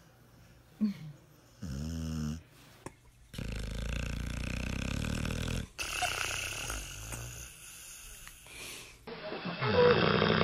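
Sleeping dogs snoring, several different dogs one after another: two short snores in the first couple of seconds, then a long, louder rasping snore, with the loudest snoring near the end.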